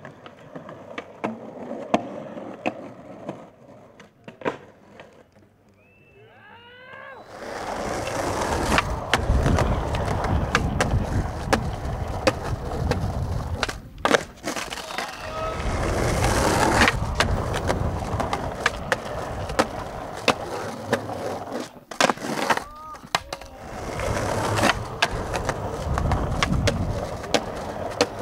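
Skateboard wheels rolling on rough concrete, with sharp clacks of tail pops, landings and trucks hitting ledges. Quiet at first with scattered clicks; from about seven seconds in the rolling gets loud, dropping out briefly around a kickflip in the middle before the landing and a ledge grind.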